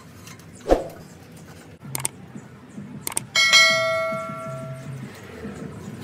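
Subscribe-button sound effect: two short clicks about a second apart, then a bright bell ding that rings and fades over about a second and a half. A single dull thump comes earlier, under a second in.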